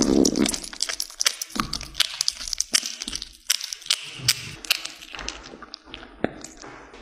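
Cat chewing raw meat from a small glass beaker: dense crunching in the first half second, then many sharp, irregular wet clicks and smacks of its mouth on the meat.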